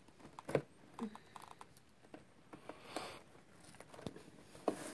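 Scattered light taps, clicks and rustles of hands and scissors working at a taped cardboard advent calendar box, the sharpest click about half a second in.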